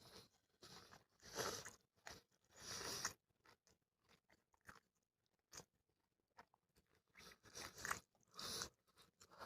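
Crunching bites and chewing of crispy chicken: a cluster of crunches in the first few seconds, a pause, then more crunching near the end.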